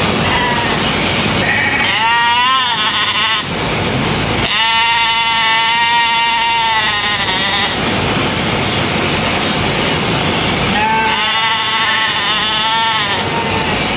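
A sheep bleats three times, the middle call long and wavering, over the steady buzz of electric sheep-shearing clippers.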